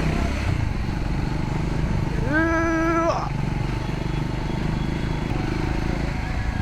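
Triumph Scrambler 400 X's single-cylinder engine running steadily on the move. A single steady pitched tone, lasting just under a second, cuts in about two seconds in.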